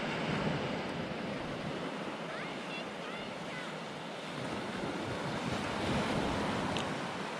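Sea waves washing and breaking on the shore, swelling and easing, with a surge about six seconds in, and wind buffeting the microphone.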